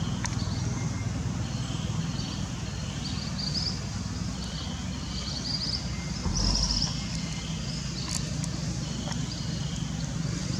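Outdoor ambience: a steady low rumble with many short, high-pitched chirps repeating throughout, and a brief low bump about six seconds in.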